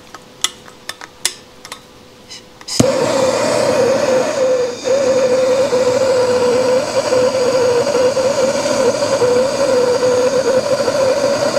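Hand-held propane torch being lit: a few sharp igniter clicks, then the flame catches suddenly a little under three seconds in and burns with a loud, steady rushing noise.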